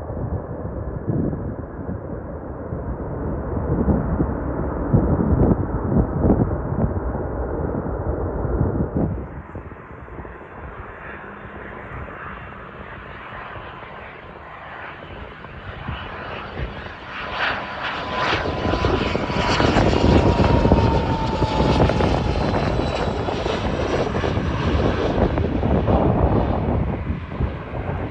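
Jet aircraft noise: a Boeing 737-800's engine rumble breaks off about nine seconds in. Then a Cessna Citation CJ4 twin-turbofan business jet on landing approach grows louder and passes overhead, its engine whine falling in pitch as it goes by.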